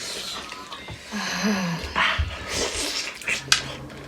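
Close-up eating noises: irregular wet chewing, sucking and breathing while spicy chicken feet are eaten. A short hummed 'mm' comes about a second in, and a sharp click near the end.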